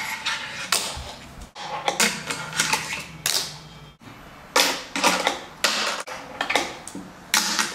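Fingerboard being ridden on a Blackriver funbox ramp: a quick string of sharp clacks and knocks as the small board pops and lands, with the rolling of its tiny wheels between the hits.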